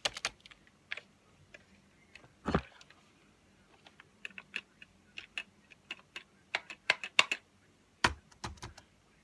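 Key clicks from an external white Apple keyboard being typed on in irregular spurts, with one dull knock about two and a half seconds in. The typing is a password entry at the Mac login screen.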